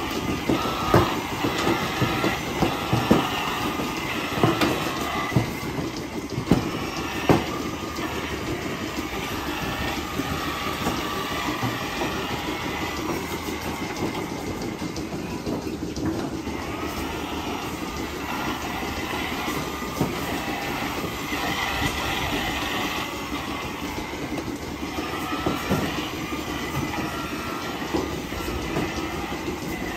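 Milking parlour machinery running: the milking machines give a steady mechanical noise. Sharp clanks of milking clusters being handled come several times in the first few seconds.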